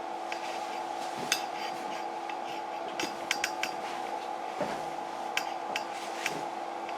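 Steady machine hum from a running motor, with sharp clicks and clinks of hard objects, a few singly and a quick cluster of four about halfway through.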